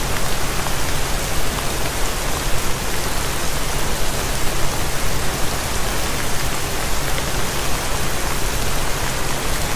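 Steady, even rain-like hiss forming the sound bed of a subliminal affirmation track, with low steady tones underneath.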